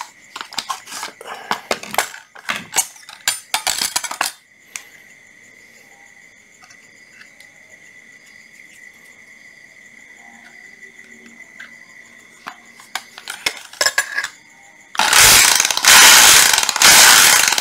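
Plastic clicks and rattles as a National EZ6812 cordless hammer drill is handled, then near the end the drill runs in a few short bursts on the trigger.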